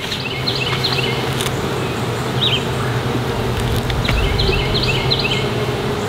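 Honeybees buzzing in a steady hum around an opened hive as its frames are worked, with a few short bird chirps over it.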